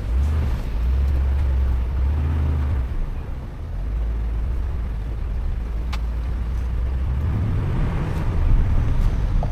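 4WD vehicle driving off-road, its engine and running gear giving a steady low rumble, with a single sharp click about six seconds in.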